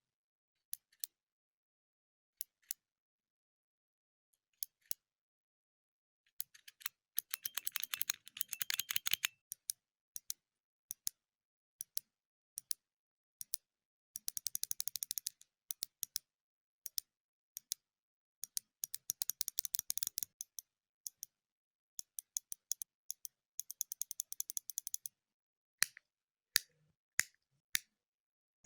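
Button clicks: single sharp clicks spaced out, broken by four runs of fast repeated clicking lasting a second or two each.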